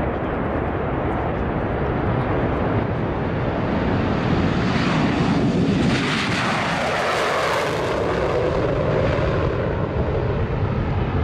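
Saab 37 Viggen's Volvo RM8 afterburning turbofan at full afterburner on a takeoff run. The jet roar swells to its loudest about six to eight seconds in as the jet lifts off past, then drops in pitch as it climbs away.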